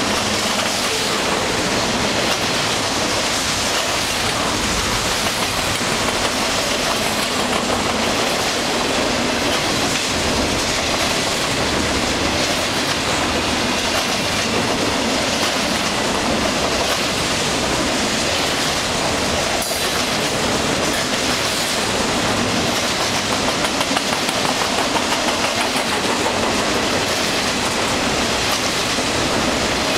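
Double-stack container cars of a long freight train rolling past close by: a steady rush and rumble of steel wheels on rail, with a short run of regular beats from wheels passing over a rail joint a little after twenty seconds in.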